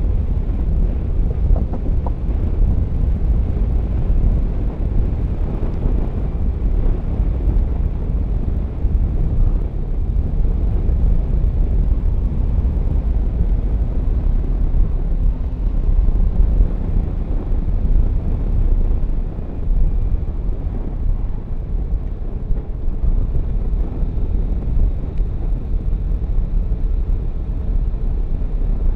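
Steady low rumble of wind on the microphone, mixed with engine and road noise from a Yamaha Tracer 9 GT motorcycle being ridden at speed.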